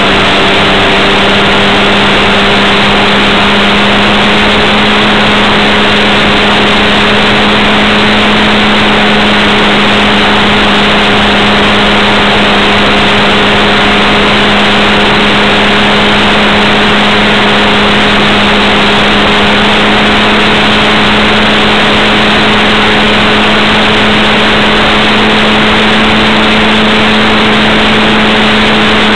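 Onboard sound of a model airplane in flight: its motor and propeller run at a steady pitch under a loud, constant rush of wind over the onboard camera's microphone.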